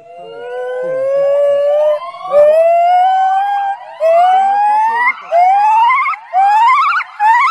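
Male white-cheeked gibbon singing: a series of rising whoops. The first are long and slow, and each one after is shorter and higher, speeding up toward the end.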